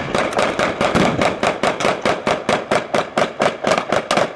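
Machine gun firing blanks in one long continuous burst, about seven shots a second.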